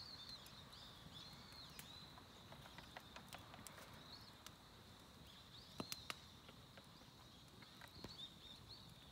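Near silence: faint high chirps of small birds, with a few light ticks, the loudest a pair about six seconds in.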